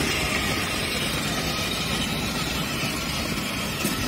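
Battery-powered ride-on toy cars driving over block paving: a steady rolling rumble and rattle of plastic wheels and small electric motors.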